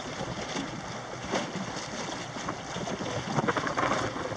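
Small aluminium outboard boat under way at trolling speed: water rushing along the hull and wind buffeting the microphone, with a few short knocks near the end.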